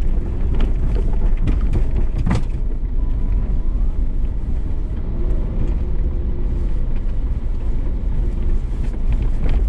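Ford Bronco driving off-road: a steady low engine-and-drivetrain rumble, with a few sharp knocks in the first two and a half seconds.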